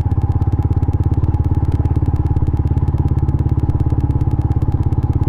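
Yamaha Sniper 150's single-cylinder four-stroke engine running through an MVR1 aftermarket power-pipe exhaust at a steady low speed, with an even, rapid beat of exhaust pulses.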